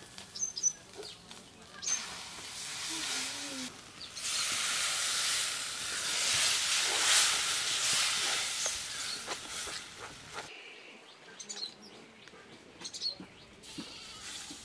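Semolina and gram-flour batter sizzling as it hits hot oil and fried spices in a pan. The hiss swells about four seconds in and dies away after about ten seconds as the batter settles.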